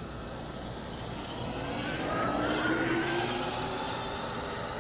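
Electric motorcycle's QS Motor 138 3000 W mid-drive motor whining as the bike accelerates past, the whine rising in pitch and loudest about halfway through, then fading as it rides away.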